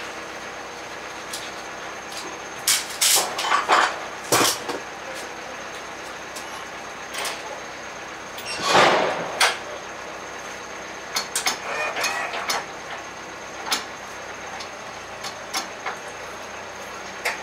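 Scattered metal clanks and knocks as an electric pallet stacker is handled and secured inside a truck's cargo body, with one louder noise lasting about a second about nine seconds in.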